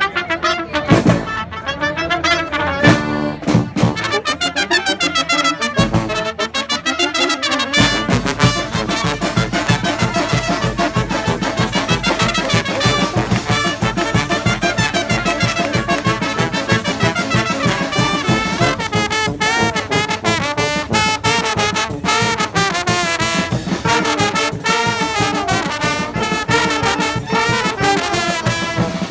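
Street brass band playing a tune with trumpets and trombones. The opening is thinner, and about eight seconds in the full band comes in with a steady drum beat.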